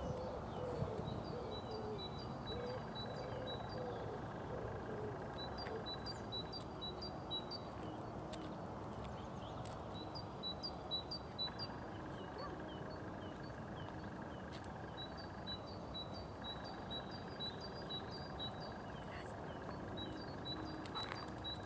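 A songbird singing in short phrases of rapid, repeated high notes, a phrase every few seconds, over a steady outdoor hiss.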